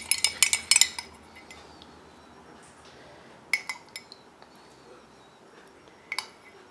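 Metal spoon clinking against a glass jug as syrup is spooned out: a quick run of clinks in the first second, then a few single clinks spaced a second or two apart.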